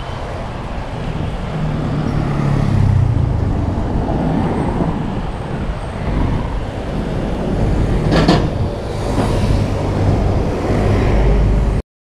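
Road traffic, with motor vehicles running and passing over a deep, steady rumble, and one short sharp sound about eight seconds in. The sound cuts off abruptly just before the end, where the GoPro Hero 7 Black stopped recording on its own.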